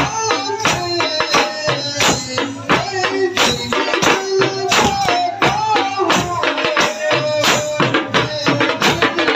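A man singing a wavering melody into a microphone over a fast, steady drum beat of about four or five strokes a second.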